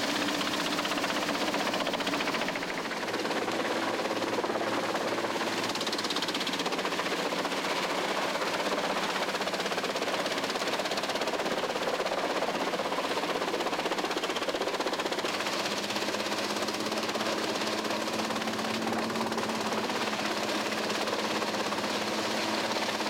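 Gandini Chipper Energy 50-75 drum chipper running under load, chipping branches and logs fed by a grapple: a dense, continuous clatter of wood being cut, over a steady engine drone.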